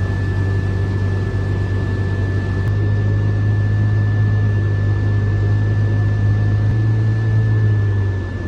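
Heavy vehicle engine running steadily: a loud low drone with a constant high whine above it. The drone shifts slightly twice and eases off just before the end.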